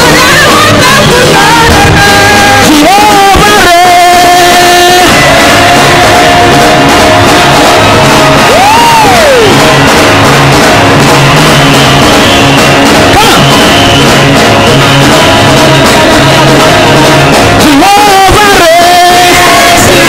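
Loud praise-and-worship music with a steady beat, with voices singing and shouting over it.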